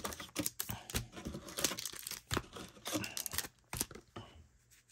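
Crinkling and rustling of wrapped baseball card packs being pulled from a cardboard display box and set down, with many quick crackles that die away after about three and a half seconds.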